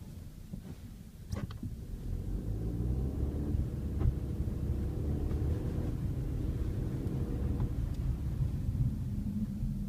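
Cabin sound of a VW with a seven-speed DQ500 DSG gearbox under way, the engine note rising as it pulls. Sharp knocks come about a second and a half in and again about four seconds in: the knock on the 2nd-to-3rd gear shift that is the complaint.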